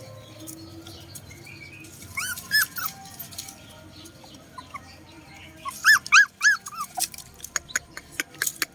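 Puppies whimpering in short, high rising-and-falling yips, in two clusters of three or four, about two seconds in and again about six seconds in. A quick run of sharp clicks follows near the end.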